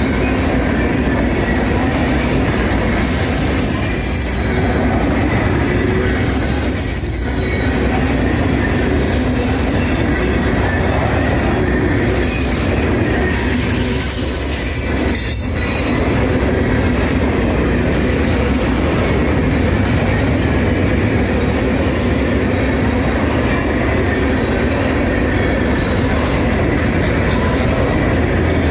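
A CSX train of Herzog cars rolling past, a steady loud rumble of steel wheels on rail. High-pitched wheel squeal comes and goes over it.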